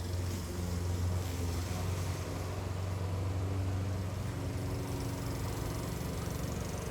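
Lawnmower engine running at a steady drone, with a hiss of wind over it.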